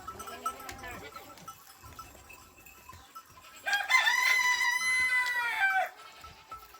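A rooster crowing once, a single call of about two seconds starting a little past halfway, holding its pitch and dropping at the end.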